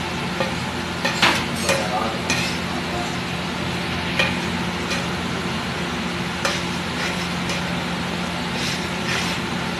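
Flat metal spatula scraping and clacking on a large flat pav bhaji griddle as the masala is worked, with a steady sizzle underneath. There are about eight sharp metallic clacks spread through, the loudest a second or two in.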